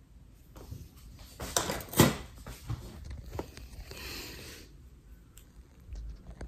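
A few sharp knocks, the loudest about two seconds in, followed by a few lighter ticks, then a brief rustling hiss around four seconds in.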